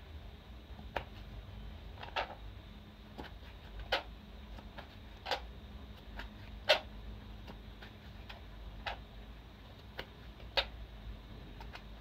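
Kitchen knife cutting through tomato and knocking on a plastic cutting board: about ten short, sharp knocks at uneven intervals of roughly a second.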